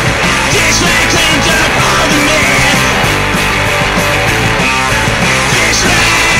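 Loud rock music soundtrack, playing steadily throughout.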